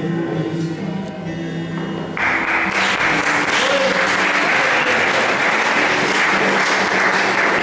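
Background music with long held notes, then about two seconds in an audience breaks into applause that continues steadily over the music.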